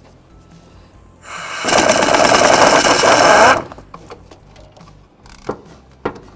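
Small pneumatic impact wrench running in one loud burst of about two and a half seconds, hammering as it spins out a fan shroud mounting bolt. A couple of light clicks follow near the end.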